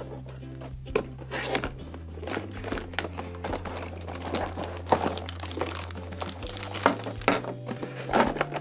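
Cardboard toy box being opened by hand and its plastic-bagged pieces handled: irregular crinkling, rustling and light knocks, over soft background music with long held low notes.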